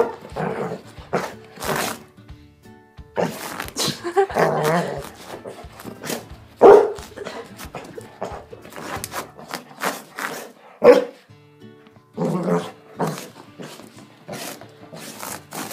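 Labrador retriever barking and grunting playfully in post-bath zoomies, with two loud sharp barks about seven and eleven seconds in, while its paws and body scuffle and thump on carpet. Background music plays underneath.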